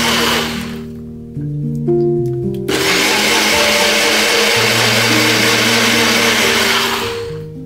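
Personal blender running with its cup pressed down onto the motor base, blending cucumber, mint and water: a short burst that stops about a second in, then after a pause a longer run of about four and a half seconds that cuts off near the end. Background music with held notes plays throughout.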